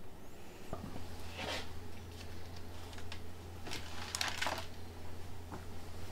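Pages of a large photo album being handled and turned by hand: a few papery rustles and flaps, the loudest cluster about four seconds in, over a steady low hum.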